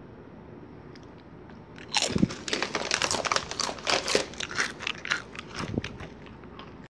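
Someone biting into a crunchy nacho-cheese tortilla chip and chewing it: a dense run of crisp crunches starting about two seconds in, thinning out near the end.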